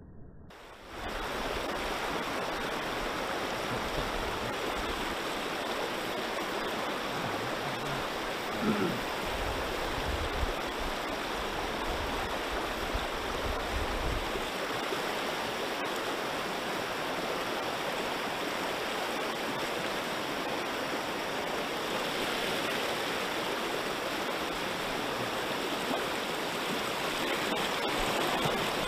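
River water rushing steadily, starting about a second in, with some low rumbling during the first half.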